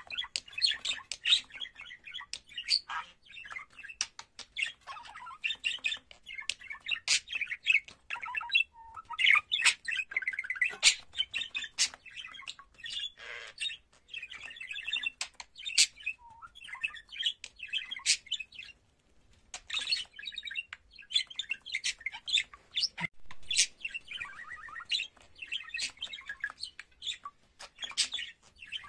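Male budgerigar warbling: a continuous run of rapid chirps, clicks and chatter, broken by brief pauses a few times.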